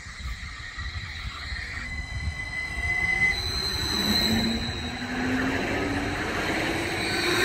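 Aarhus Letbane light-rail train running in alongside a station platform, getting louder as it comes close. About two seconds in its wheels give a high, steady squeal that jumps to a higher pitch a second later, and a lower whine follows as the cars pass.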